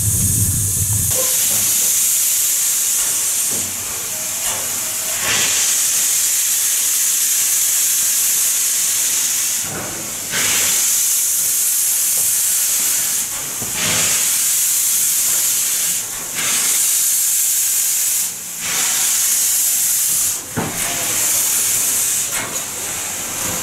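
A 2-6-6-0 Mallet steam locomotive venting steam in a loud, steady hiss. The hiss dips briefly several times, a few seconds apart, and comes straight back each time.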